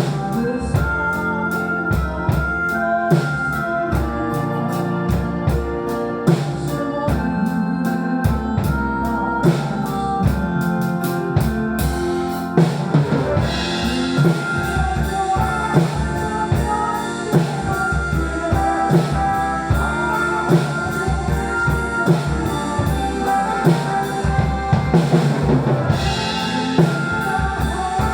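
Drum kit played in a steady beat of kick, snare and rimshot along with a recorded backing track of the song, whose organ-like keyboard chords run underneath. About twelve seconds in, the drumming gets brighter and busier.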